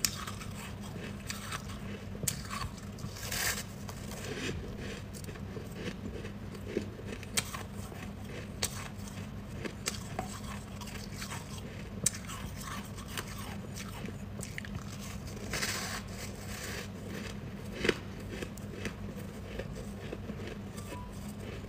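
Chunks of white freezer frost and shaved ice being bitten and chewed close to the microphone: scattered crisp crunches and crackles at irregular intervals, over a steady low hum.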